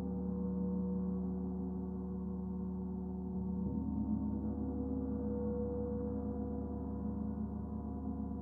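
Paiste Saturn planet gong, tuned to D at 147.85 Hz, ringing in a dense, sustained wash of overtones. Its lower tones change about three and a half seconds in as the gong keeps being played.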